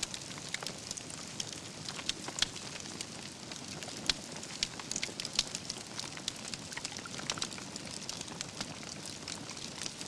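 Wood fire burning, with a steady hiss and frequent sharp crackles and pops from the logs.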